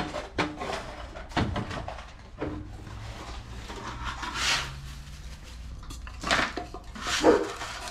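Knocks, clatter and scraping of black ABS plastic drain pipe and fittings being set and shifted in a dirt trench, with a few louder scrapes.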